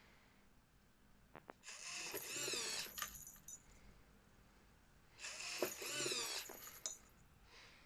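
A man making strange vocal noises in two bursts of about a second and a half each, the first about a second and a half in and the second about five seconds in, each with a pitch that wavers up and down.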